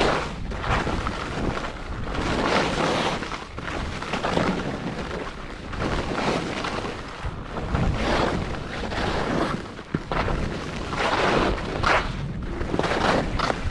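Wind buffeting the microphone while skiing downhill, with the hiss of ski edges on groomed snow swelling and fading about once a second as the skier turns.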